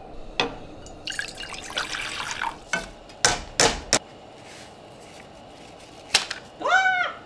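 Kitchen tap running briefly, with several sharp knocks of pots or dishes being handled. Near the end there is a short squeak that rises and falls in pitch.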